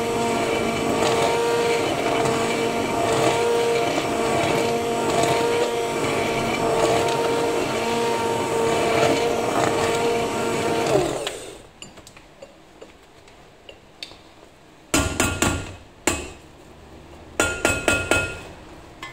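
Hand-held immersion blender running steadily in a stainless steel pot, a constant motor whine, then switched off about eleven seconds in and winding down. Several sharp knocks follow near the end.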